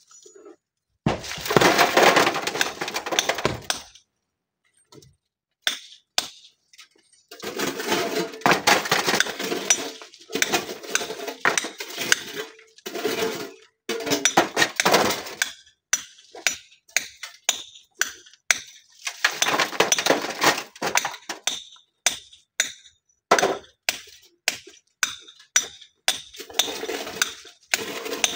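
Stones clattering and knocking together as broken rock is thrown into wheelbarrows and onto the rubble, in several long runs of rapid clatter. Sharp single strikes of a hammer on stone come in between, from a boulder being split.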